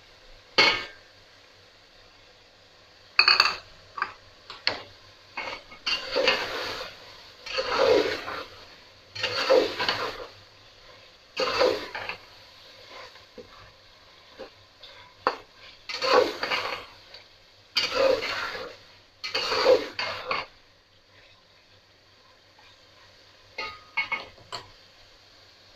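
Metal stirring spoon scraping and clattering against the side and bottom of a metal cooking pot as frying meat and masala are stirred, in irregular strokes every second or two.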